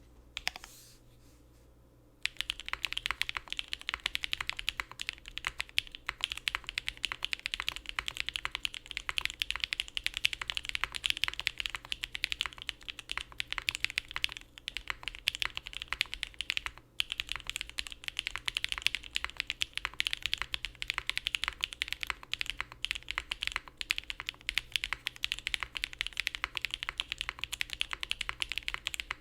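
Steady fast typing on a custom mechanical keyboard, a gasket-mounted TKD Cycle7 with a carbon-fibre plate, no foams, Gateron Cream Soda switches and GMK Chladni keycaps. After a single keystroke about half a second in, continuous rapid keystrokes begin about two seconds in, with a brief pause a little past the middle.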